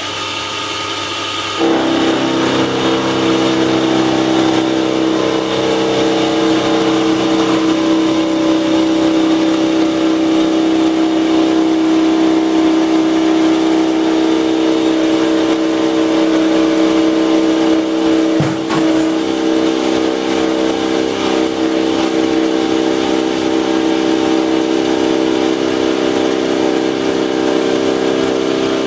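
Bench metal lathe running a face mill that cuts across the end of a cast aluminium U-section: a steady machine whir made of several held tones. It steps up in loudness about two seconds in and holds there, with one brief click about eighteen seconds in.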